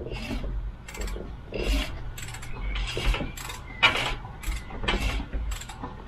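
Socket ratchet worked in a series of short strokes, about two a second, turning a Volvo B230 engine over by hand to bring the next camshaft lobe up for a valve clearance check.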